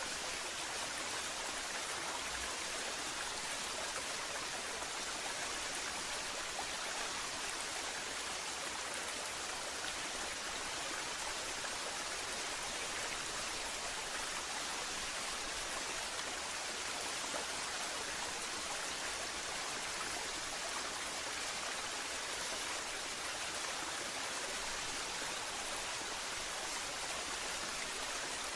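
Waterfall: a steady, unchanging rush of falling water, hissy and bright with little low rumble.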